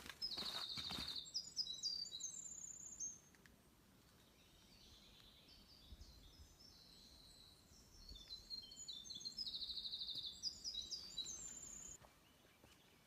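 A songbird singing twice, each song a fast high trill followed by a quick run of higher notes, the second song coming about eight seconds after the first.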